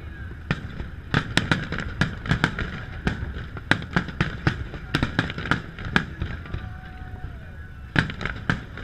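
Aerial fireworks shells bursting in rapid, irregular bangs, several a second. They thin out about six seconds in, and a loud cluster of bangs comes near the end.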